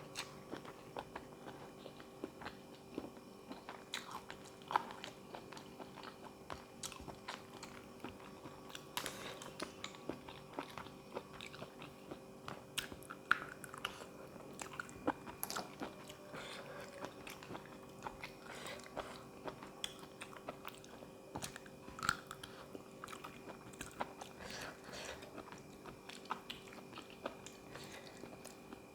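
A person eating close to the microphone: irregular chewing and crunching with scattered wet clicks, from a spicy seafood salad and raw vegetables.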